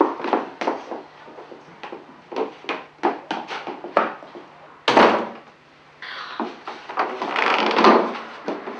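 Irregular knocks and footsteps on a wooden floor, a heavy thump about five seconds in, then a wooden front door with frosted glass panels rattling and scraping as it is opened.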